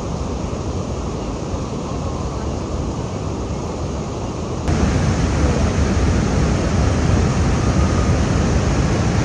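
Steady rushing of whitewater river rapids. About halfway through it jumps suddenly louder and brighter, and stays that way.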